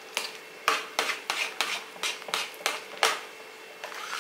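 Metal ladle scraping and knocking against the sides of an aluminium pressure cooker as it stirs thick ragi kali (finger-millet porridge), about two to three strokes a second with a short pause near the end.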